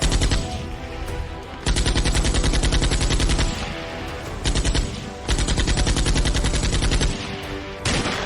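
Rapid automatic gunfire in several bursts, two of them about two seconds long, over a music score with sustained tones.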